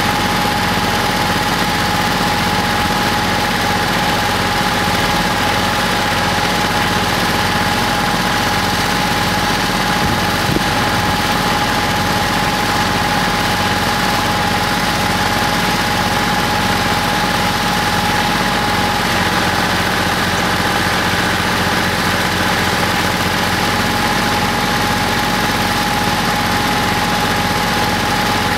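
An engine running steadily at an even speed, with a constant high whine over it. A single short knock comes about ten seconds in.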